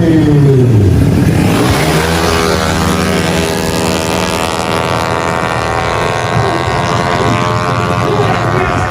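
Tuned 155cc automatic scooter engine at a drag race: an engine note falling in pitch over the first second and a half, then a steady, high-revving engine note held for the rest.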